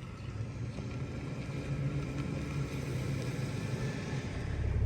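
Truck engine running with a steady low hum, growing louder toward the end.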